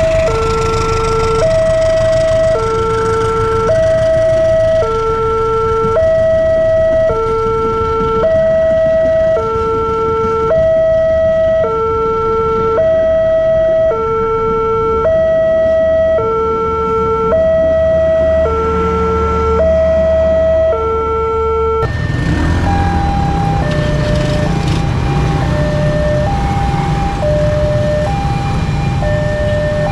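Railway level-crossing electronic warning alarm sounding a two-tone chime, low then high, about one pair every one and a half seconds, over the low rumble of a passing train. About 22 seconds in it cuts to another crossing's alarm with a different, slower two-tone pattern over idling motorbike engines.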